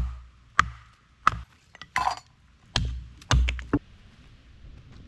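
Wood-chopping strikes on a Tree of Heaven (ailanthus) log: about eight sharp knocks at uneven intervals over the first four seconds, with a splintering crack among them, as the log is split into halves.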